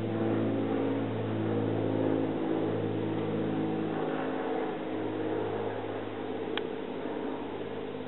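Propeller training airplane flying over, a steady engine drone made of several pitched tones that drift slightly in pitch. It swells about two seconds in and then slowly eases off. There is one sharp click near the end.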